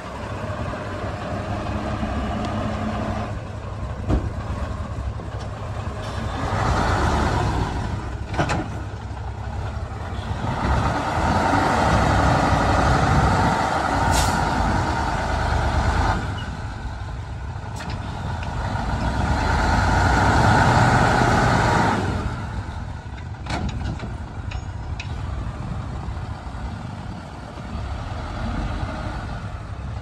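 Heavy diesel earthmoving machinery working: a steady low engine rumble that swells louder three times, with a few sharp clanks in between.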